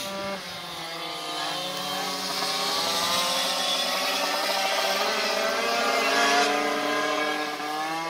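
Several small two-stroke moped engines running at once, their pitches rising and falling against each other as the riders open and close the throttle. The sound grows louder toward about six seconds in.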